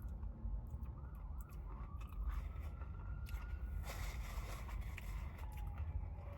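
Emergency-vehicle siren wailing faintly: one slow rise and fall in pitch, with the next rise starting near the end, over a low rumble and scattered small clicks.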